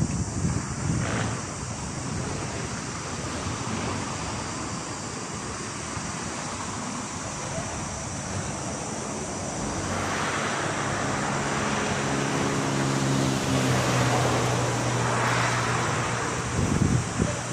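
Steady, high-pitched chorus of jungle insects. About two-thirds of the way through, a vehicle passes by, its engine hum and road noise swelling and then fading.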